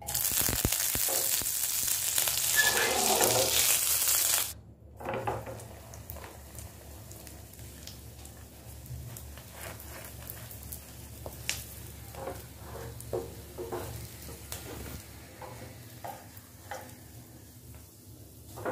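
Burger bun frying in ghee and butter in a pan, sizzling. The sizzle is loud for the first four seconds or so, drops suddenly, then carries on more quietly with scattered crackles and light clicks.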